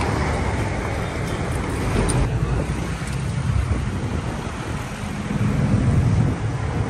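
Steady road traffic: a low rumble of passing vehicle engines with no single event standing out.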